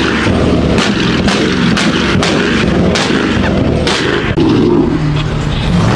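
Car engine at high revs with a rapid, irregular string of loud exhaust pops and cracks over a steady low drone.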